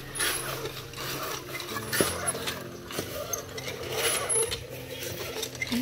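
Repeated scraping strokes of a trowel working wet concrete along the footing of a hollow-block wall, roughly one rasping stroke a second.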